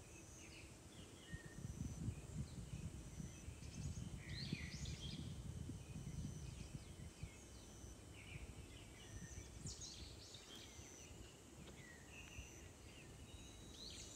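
Birds calling in woodland, with short scattered chirps and rising and falling calls. A low rumble sits under them, strongest in the first half.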